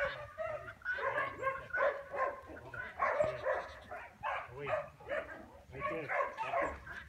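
Repeated short animal cries, many in quick succession, each one pitched and wavering.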